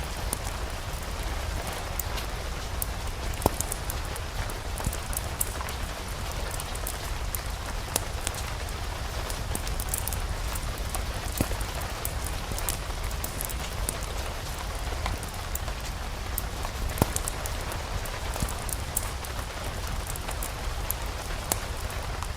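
Steady rain falling, an even hiss over a low rumble, with scattered sharp ticks and pops throughout.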